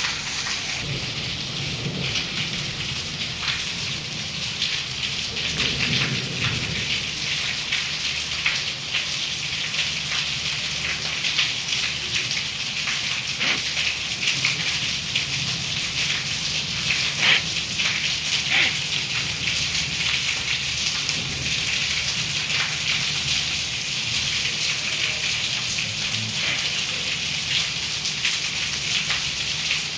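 Heavy rain with hail pouring down: a steady hiss full of sharp ticks of stones and drops striking hard surfaces, with a few louder strikes a little past the middle.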